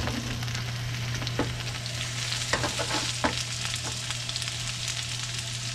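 Sliced porcini mushrooms and onion frying in olive oil in a skillet: a steady sizzle with scattered pops and crackles, over a steady low hum.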